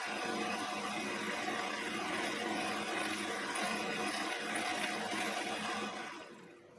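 Quorn tool and cutter grinder running, its cup wheel grinding a high-speed steel end mill as the cutter is worked across it. The sound is steady, then dies away about six seconds in.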